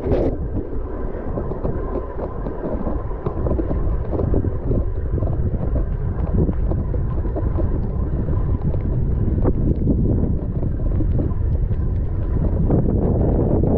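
Wind buffeting the microphone of a bike-mounted camera as a mountain bike rolls over a wet grassy track. A brief rubbing burst at the very start comes from a glove wiping the camera.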